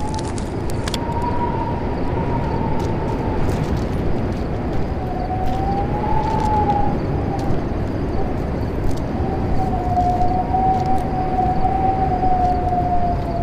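Wind rumbling with a high, thin whistle that wavers slowly up and down in pitch, coming and going in three long swells.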